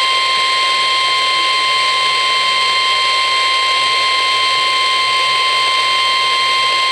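NOAA Weather Radio 1050 Hz warning alarm tone: one steady, high, unbroken tone over radio static hiss, the signal that a warning broadcast is about to follow.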